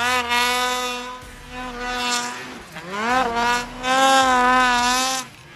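Two-stroke snowmobile engine revving hard, its pitch wavering and dipping then climbing again with the throttle.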